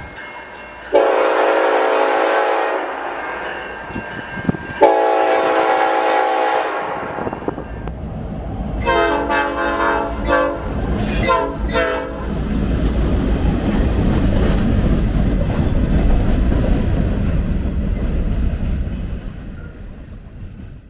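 Nathan Airchime locomotive horn sounding two long chord blasts, then a quick string of short toots. The train's rumble follows as it rolls past, fading away near the end.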